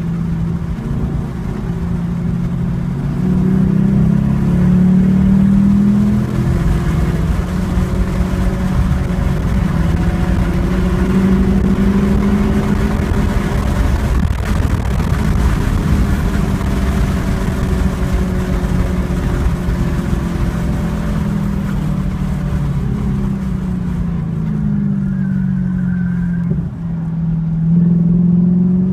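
2014 Chevrolet Camaro SS 1LE's 6.2-litre V8, heard from inside the cabin, pulling hard in third gear with the pitch climbing toward about 6400 rpm over the first half. It then falls steadily as the car slows for a corner and picks up again near the end, with road and wind noise underneath.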